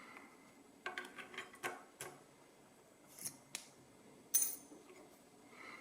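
Small metal lock parts clicking and tapping as a pin-tumbler rim cylinder is taken apart: a quick run of light clicks about a second in, a short scrape near three seconds, and one sharp, high click a little past four seconds, the loudest.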